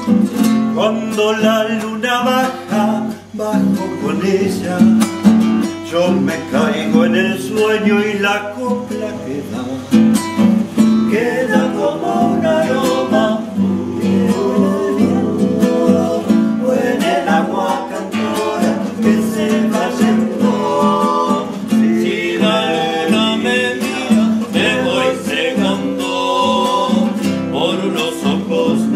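Classical guitar strummed steadily, accompanying men's and a woman's voices singing together.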